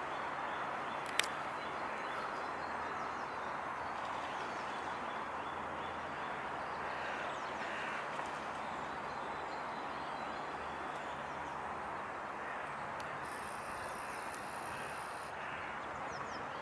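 Steady outdoor background noise, with faint bird calls and a single sharp click about a second in.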